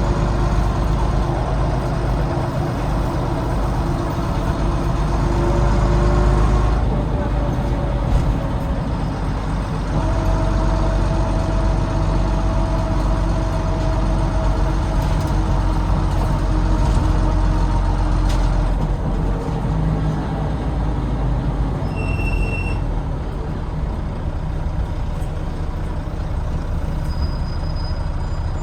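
Volvo D9B diesel engine of a Volvo B9TL double-decker bus, heard from the back seat inside the bus, running under load with a low rumble and a mid-pitched whine that comes and goes twice. The uploader cannot place the whine and wonders whether it is the gearbox, the cooling fan or the axles. Later the engine eases off, and a short high beep sounds a little past the middle.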